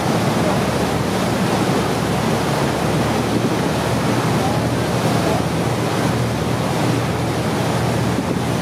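Wind buffeting the microphone over the steady rush and slap of sea water around a small boat, with a low, steady hum underneath, likely the boat's engine.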